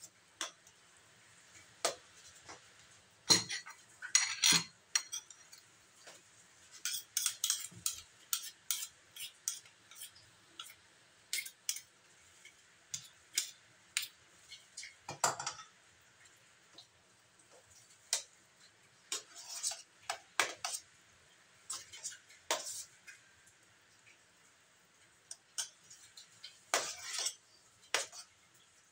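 A metal spoon scraping and clinking against a stainless steel tray while spreading and smoothing thick sticky rice. The clinks come irregularly, in clusters, through the whole stretch.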